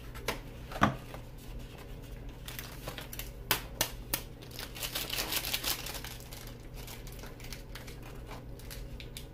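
Small snack packets crinkling and rustling as they are handled, with a few sharp clicks. The crinkling is busiest from about three to six seconds in.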